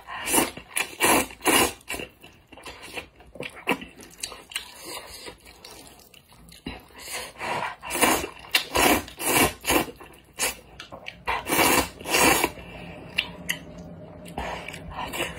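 Wide alkaline wheat noodles being slurped up from a bowl of spicy broth. There are a few short slurps in the first two seconds and a longer run of slurps from about seven to twelve seconds in, with quieter chewing between them and near the end.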